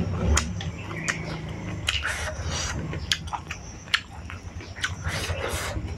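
Close-miked eating sounds: a person chewing and biting a mouthful of rice and curry with a raw green chilli, with many short wet mouth clicks and small crunches over a low hum.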